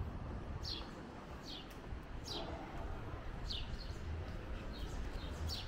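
A small bird chirping repeatedly: about eight short calls, each falling in pitch, at uneven intervals. Under them runs a steady low outdoor background rumble.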